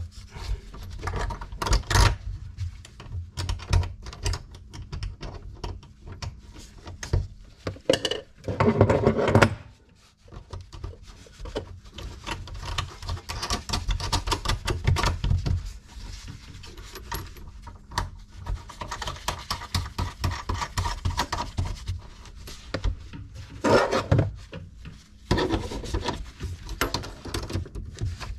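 Metal tools and tap parts being handled while a mixer tap is worked on: scattered clicks, clinks, knocks and scraping, with a louder rush of noise about eight seconds in and again near the end.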